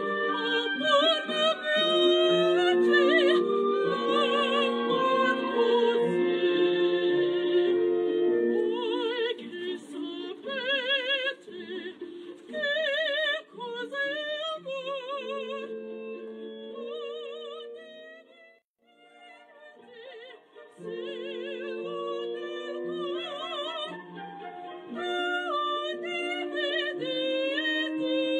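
Background music: operatic singing with strong vibrato over an orchestral accompaniment, dropping away briefly a little past the middle before the singing resumes.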